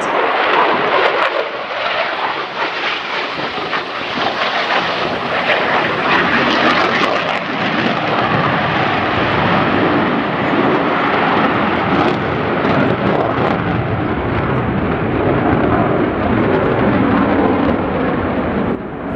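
Lockheed Martin F-35A Lightning II fighter jet, its single Pratt & Whitney F135 turbofan roaring loudly as it flies past. The roar turns deeper and more rumbling from about eight seconds in.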